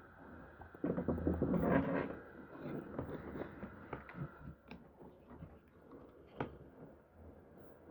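Handling noises: irregular knocks and clicks, with a louder jumble of clatter and rustle about a second in.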